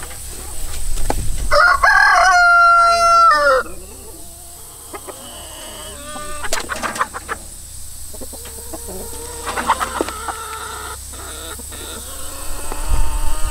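A rooster crows once, loudly, about two seconds in, one long call with a held note that falls away at the end. Softer clucks and short calls from chickens follow.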